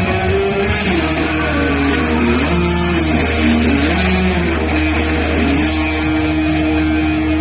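Rock music with guitar: a melody line slides up and down over a steady low bass, then settles on one long held note about two-thirds of the way through.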